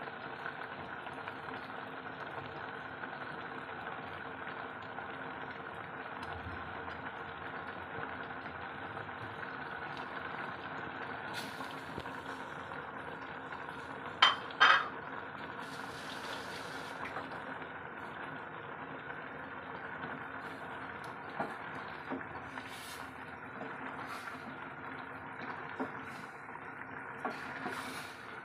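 Dark humba sauce bubbling at a steady simmer in a stainless steel pot, with two sharp clinks about halfway through. A few light knocks come near the end as a wooden spatula stirs the pot.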